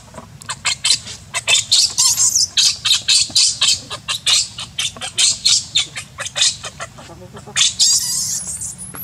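Baby macaque squealing and screaming in distress while its mother grabs and handles it: a rapid string of short, shrill cries, several a second, with a longer cry near the end.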